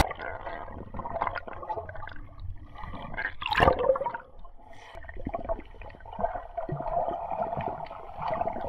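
Underwater sound heard through a submerged camera over a coral reef: muffled water noise with scattered clicks and crackles, and a louder gurgling rush of water about three and a half seconds in.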